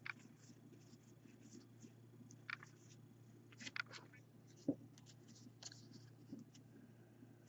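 Faint clicks and scrapes of baseball trading cards being handled and slid against one another, a few separate ticks spread through, over a low steady hum.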